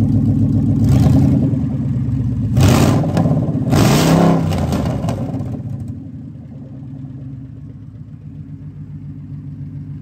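2014 Ford Coyote 5.0-litre V8 running on an engine stand through open headers on its first start, with no bad noises. It is revved twice, about three and four seconds in, the second rev rising and falling in pitch, then settles to a quieter steady idle.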